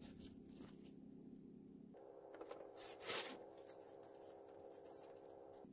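Quiet handling of fresh chwinamul greens as the stems are trimmed: soft rustling of leaves and stems, with one louder brief crackle about three seconds in.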